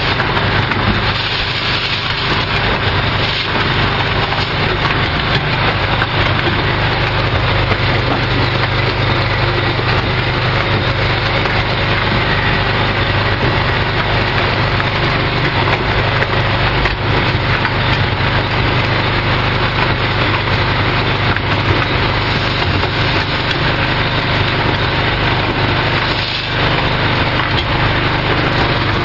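A 7 kVA portable generator's engine running steadily, with a dense, continuous rattle of fine clicks over its hum.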